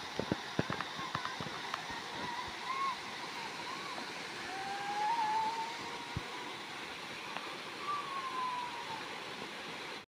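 Waterfall pouring over rock into a pool, a steady rush of water. A few short low thumps in the first two seconds, and faint wavering whistle-like tones rise and fall over it now and then.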